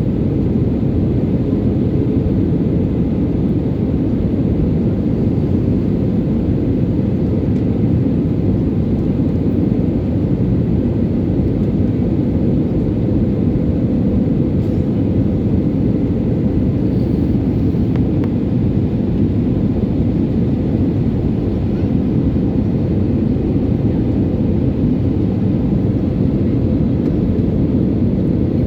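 Passenger airliner in flight heard from inside the cabin: a loud, steady, deep rumble of engine and airflow noise that hardly changes.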